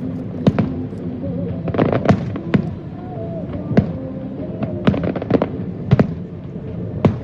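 Fireworks bursting in a rapid, irregular string of sharp bangs, a dozen or so in seven seconds.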